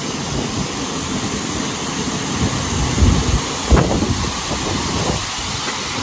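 Steady rushing of a waterfall pouring into a rock pool, with two low bumps a little after three seconds in.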